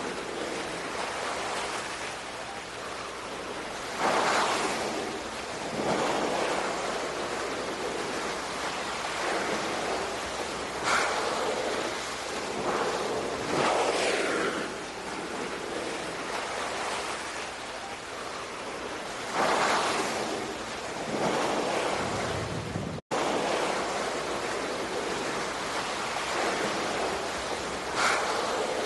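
Ocean surf: waves washing in every few seconds over a steady rush of sea noise, with a momentary dropout about two-thirds of the way through.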